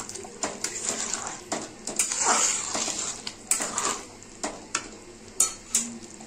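Steel spatula stirring a thin, soupy potato curry in a steel kadhai: wet sloshing with repeated clinks and scrapes of metal against the pan.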